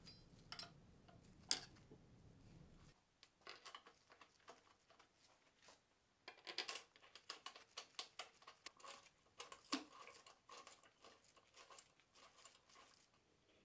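Faint metallic clicks and taps of an Allen key turning and seating bolts on an aluminium extrusion rail, with one sharper tap about a second and a half in and a busier run of small clicks in the second half. A faint low hum stops about three seconds in.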